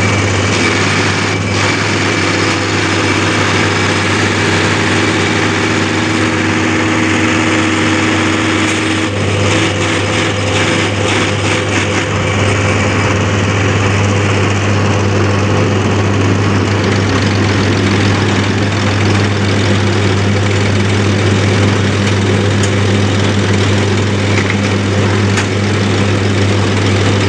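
Diesel injection pump test bench running steadily, its motor turning an inline diesel injection pump, with a low, even hum. A higher tone drops out about nine seconds in, with a few seconds of rapid clicking.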